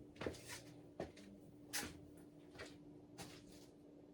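Casablanca Panama II ceiling fan motor giving a faint, steady hum, just after it has been switched to reverse. A few soft, short rustles or clicks come about once a second over it.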